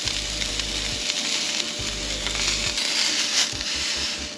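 Seasoned tuna loin sizzling steadily as it sears in a hot ridged grill pan.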